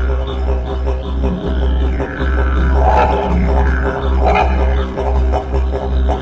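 Background music built on a deep, steady drone that pulses in a regular rhythm, with higher sweeping sounds laid over it.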